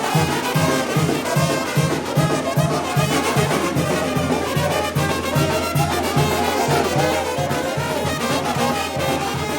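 Mexican banda (brass band) playing: trumpets and trombones carrying the tune over a bass line with a steady beat of about three pulses a second.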